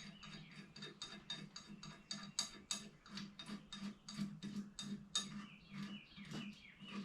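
Rapid metallic clicking, about four a second, from the ungreased bottom bracket cone being turned onto a vintage bicycle's crank spindle, with a few short squeaks near the end.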